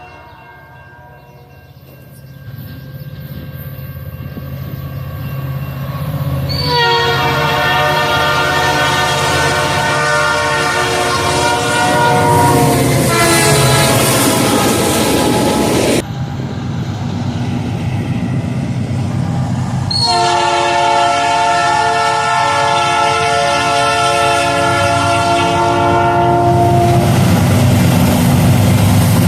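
A locomotive's Nathan Airchime P3 air horn sounding long chord blasts over the rumble of a moving train. The first blast starts about seven seconds in after the train's approach grows louder, and its chord drops in pitch as the train passes. After an abrupt cut, a second long, steady blast follows.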